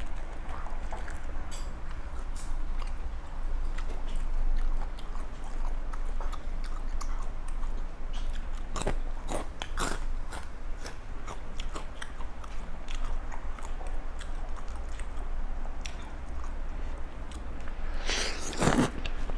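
Close-up eating sounds: steady chewing with many sharp crunches of chicken joints being bitten through, cartilage and bone included, and a louder cluster of crunches near the end.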